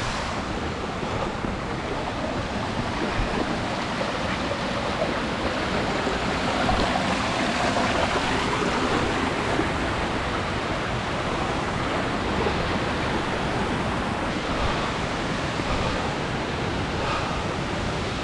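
Waterfall's steady rush of falling water, even and unbroken.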